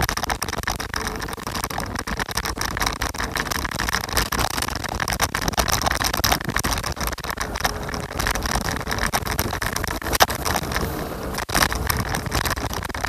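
Scooter riding noise: a steady rush of wind and road rumble, broken by frequent small knocks and rattles, the sharpest about ten seconds in.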